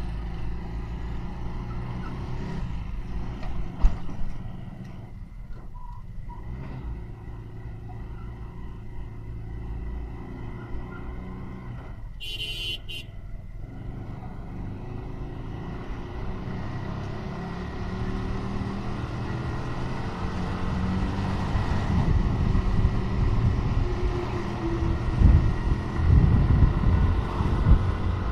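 Motorcycle riding along a road, its engine running steadily under road noise and wind on the microphone. A short high-pitched beep sounds about halfway through, and the wind buffeting grows louder over the last several seconds.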